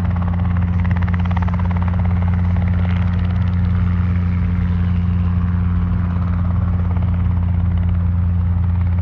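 Helicopter running, a steady low drone that holds even throughout.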